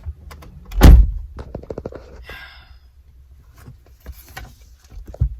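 A car door shutting with a heavy thunk about a second in, followed by a brief high-pitched squeak and a few small clicks and knocks, with another knock near the end.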